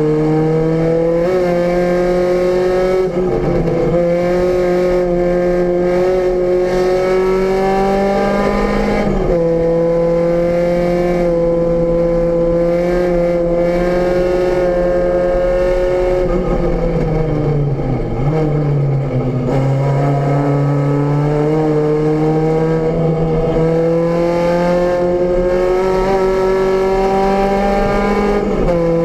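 A VW Rabbit GTI race car's inline-four engine at full throttle, heard from inside the stripped cabin. It climbs in pitch through the gears, with sharp upshift drops about 3 s and 9 s in and again near the end. Midway the revs fall away as the car slows for a corner, then the engine pulls hard again.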